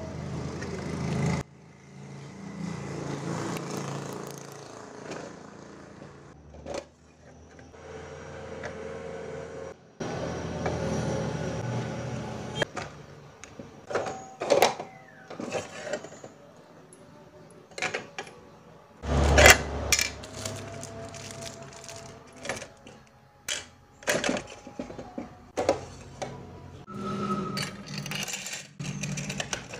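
Hands handling a small plastic drawer organizer: plastic taps and clicks as its clear drawers are slid and items are set inside, with one loud knock about two-thirds of the way through. Near the end, metal clips clink as they are put into a drawer.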